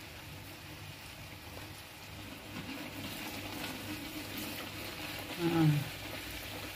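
Kuih kicap batter deep-frying in hot oil in a wok, a steady sizzle that grows somewhat louder about two and a half seconds in. A brief voice sound comes near the end.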